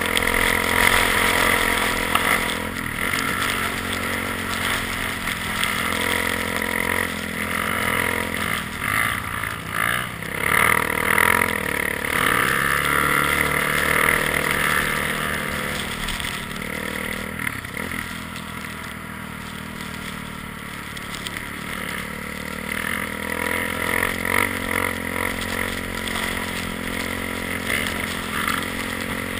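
ATV engine running under way, its note rising and falling with the throttle.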